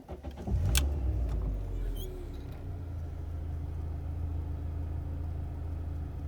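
MG6 car engine starting: it catches with a loud low burst about half a second in, the revs fall away, and it settles into a steady idle.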